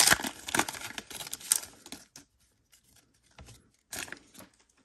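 A Pokémon 151 booster pack's foil wrapper crinkling and tearing as it is pulled open by hand, for about two seconds. Then a few faint rustles as the cards come out.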